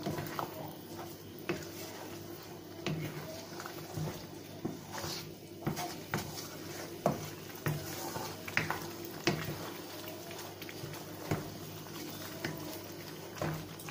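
Wooden spatula stirring mutton in a nonstick kadai, knocking and scraping against the pan at irregular intervals over the low sizzle of the meat frying in its own released oil. This is the late bhuna stage, when the oil has risen and the dish is nearly done.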